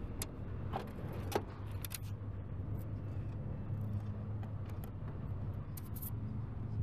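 Screwdriver and fingers working a licence plate's screws and plastic clips loose from a car's rear panel: several small metallic clicks and scrapes, most in the first two seconds and again near the end. A vehicle engine idles steadily underneath.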